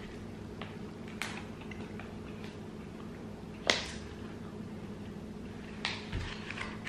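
A few short crinkles and clicks from a plastic meat-stick package being handled, the sharpest about four seconds in, over a low steady hum.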